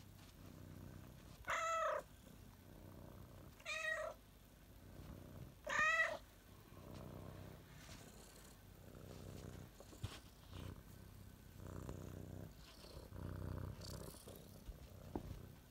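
Domestic cat purring, the low purr rising and falling with each breath, with three short meows about two, four and six seconds in.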